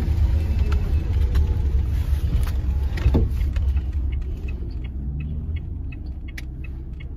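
Car driving, heard from inside the cabin: a steady low rumble of engine and road noise, easing a little in the second half, with a few light clicks near the end.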